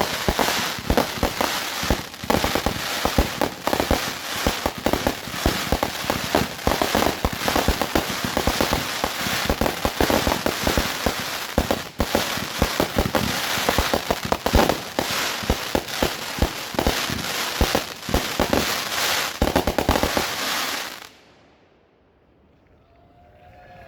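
Fireworks finale: a dense, rapid barrage of bangs and crackling bursts overlapping one another, which stops abruptly near the end.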